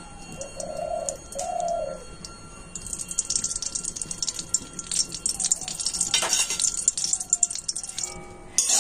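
A bird cooing twice, two short low notes in the first two seconds. Then, from about three seconds in, a spoonful of ghee crackles and spits as it melts in a hot aluminium karahi.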